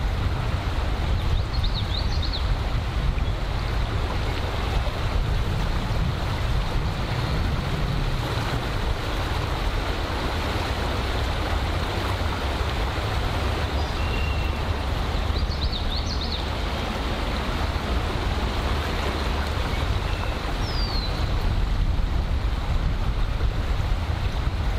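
Steady rushing outdoor noise, with wind buffeting the microphone as a low, uneven rumble. A few faint bird chirps come through, around two seconds in, about sixteen seconds in and near the end.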